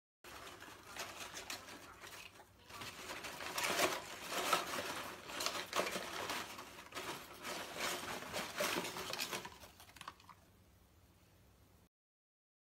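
A dog nosing and digging through crumpled brown packing paper in a cardboard box, foraging for treats hidden in it: the paper crinkles and tears in irregular bursts, loudest a few seconds in, and dies away about ten seconds in.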